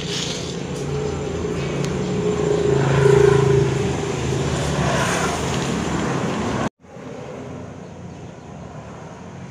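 A vehicle engine running, growing louder about three seconds in and then easing off. About two-thirds of the way through, the sound cuts off abruptly and a quieter steady hum takes over.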